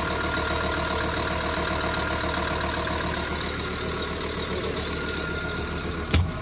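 Develon DL350 wheel loader's diesel engine idling hot after a run, a steady hum heard at the open engine bay. One sharp bang comes near the end, after which the engine sounds quieter.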